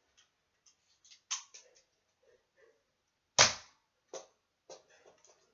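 Nerf Rebelle foam-dart blaster being handled and fired: a few light clicks, then one loud sharp shot about three and a half seconds in, followed by two more short clicks.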